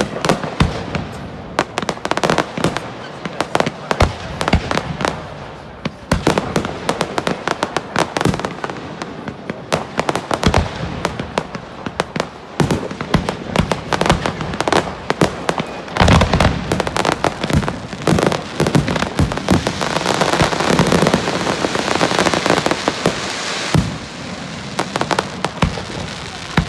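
Aerial fireworks display going off: a rapid, continuous run of bangs and crackles, thickening into a dense crackling barrage about two-thirds of the way through.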